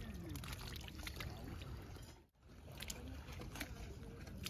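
Faint splashing and trickling of shallow, muddy water stirred by hands feeling for fish, with scattered light clicks. The sound drops out briefly about halfway through.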